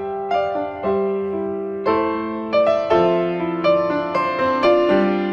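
Background music: a gentle keyboard melody in the manner of a piano, single notes struck roughly twice a second and left to ring.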